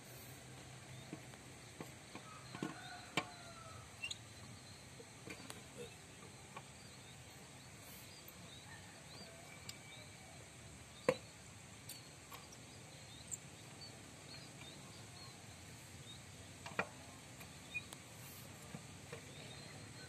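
Quiet outdoor background with a few sharp clicks or knocks scattered through it and faint short chirps.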